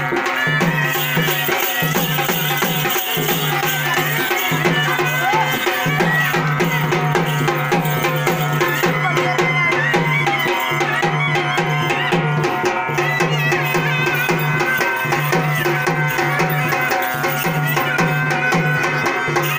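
Live traditional folk music: drums beat a steady, evenly repeating rhythm under a wavering melody, with the voices of a crowd mixed in.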